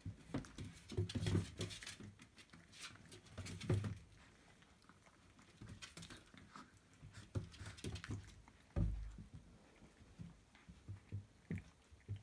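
Several Siberian husky puppies licking and mouthing at a person's hand: irregular wet smacking and small clicks throughout, with a dull bump about nine seconds in.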